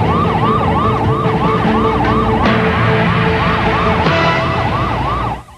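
Police car sirens wailing in a fast yelp, the pitch rising and falling about three times a second over a low vehicle rumble. The sound cuts off abruptly near the end.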